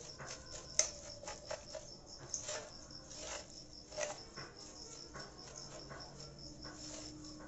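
Metal spoon scraping and clinking against a steel pot as dry puffed rice is stirred and tossed for jhal muri, with the rustle of the rice; sharper clinks about a second in and about four seconds in. A cricket chirps steadily in the background.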